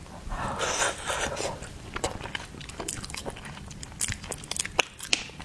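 Close-miked mouth sounds of someone eating: biting and chewing, with a longer crunchy stretch in the first second and a half, then scattered wet clicks and smacks.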